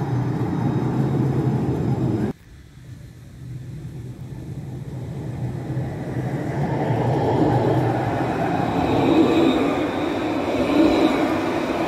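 Tram noise that breaks off abruptly about two seconds in, then a tram approaching on its rails, growing steadily louder over several seconds with a high whine over the rumble.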